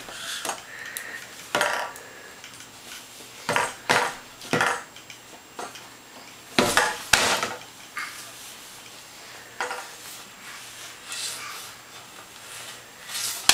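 A string of irregular clattering knocks and rattles, some with a short ring, from a toddler's noise-making toy tube being handled and knocked about.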